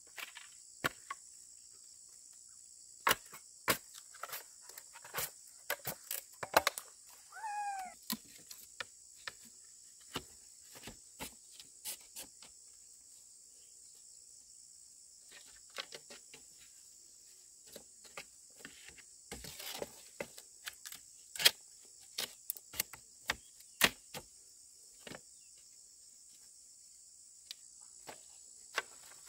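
Irregular sharp knocks and clicks, as of work with wood, over a steady high chirring of insects, with a brief squeak about seven and a half seconds in.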